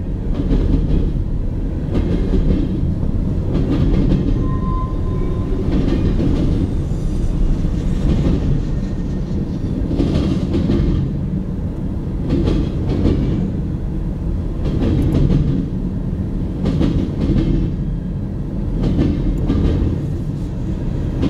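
Freight cars of a passing train rolling by, a steady rumble of wheels on rail with groups of clickety-clack clicks every couple of seconds as each car's wheel sets cross the rail joints.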